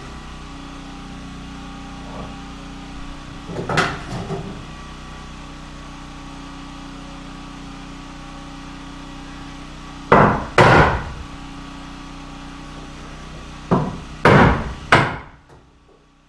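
Hammer blows on a wooden framing stud, in three groups of two or three sharp knocks, as the framing is knocked into position. A portable generator runs with a steady hum underneath and stops near the end.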